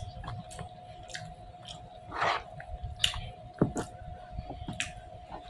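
Close-up chewing of a person eating: wet mouth smacks and short clicks at an uneven pace, with one louder bite about two seconds in, over a faint steady tone.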